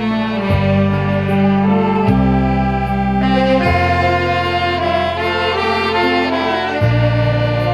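Saxophone playing a slow melody with vibrato over a backing track, whose sustained bass notes change every second or two.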